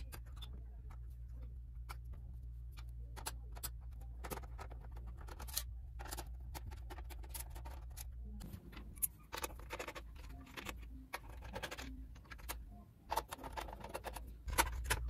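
Irregular light clicks, taps and scrapes of a screwdriver and metal parts being handled inside a desktop PC's steel case, over a steady low hum.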